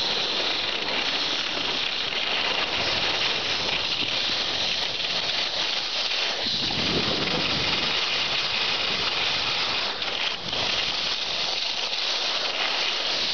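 Steady rushing noise of skiing downhill: wind over the camera's microphone mixed with skis sliding and carving on groomed snow.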